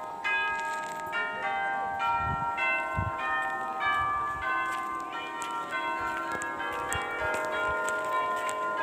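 Bells ringing: a quick run of bell notes, each ringing on and overlapping the next.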